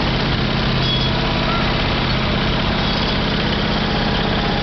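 Ride-on miniature train's diesel-style locomotive running steadily past, its motor droning low and unbroken as the train rolls along the track.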